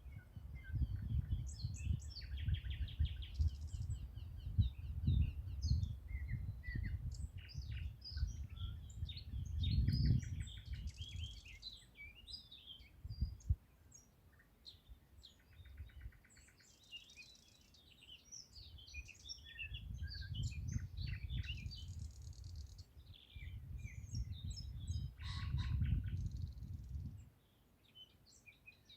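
Mixed chorus of small songbirds singing and chirping, with short rapid trills among the calls. A low rumble comes and goes underneath, louder than the birds at times, and stops suddenly near the end.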